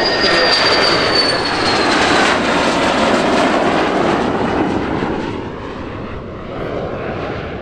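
F-16 fighter jet engine on a low, gear-down pass: a loud jet roar with a high whine that drops slightly in pitch as the jet goes by, fading as it moves away about five seconds in.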